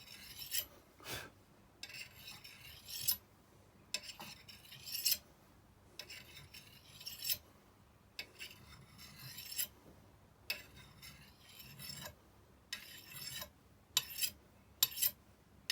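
Steel kukri blade drawn along a ceramic sharpening rod: a series of light scraping strokes, about one every two seconds, with a few shorter, quicker ones near the end.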